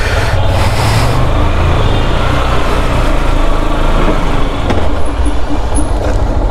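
Lifan KPT 150 motorcycle's single-cylinder engine running steadily.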